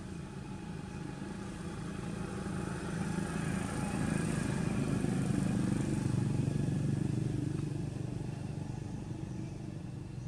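A motor vehicle engine passing by: a steady low hum that grows louder to a peak about halfway through, then fades away.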